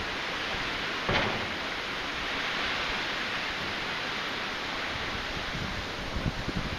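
Typhoon wind: a steady rushing hiss, with gusts buffeting the microphone near the end and a short louder burst about a second in.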